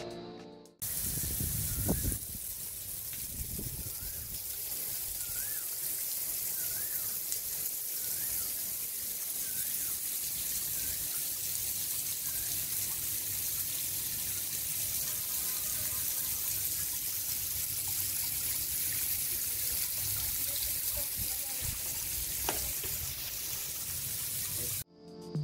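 Water pouring from a homemade PVC-pipe rain shower head, many thin streams falling in a steady, even hiss. It starts about a second in and cuts off suddenly near the end.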